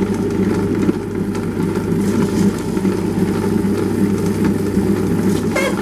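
Tabletop wet grinder running steadily, its motor humming as two stone rollers turn in the steel drum, grinding soaked rice into idli batter.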